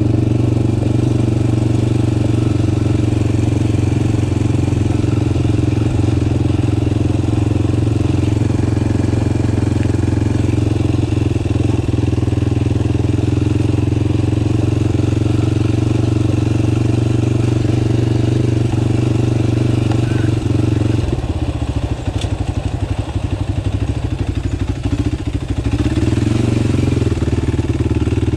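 Off-road vehicle engine running at a steady speed, turning choppy and uneven for a few seconds about three quarters of the way through, then steady again.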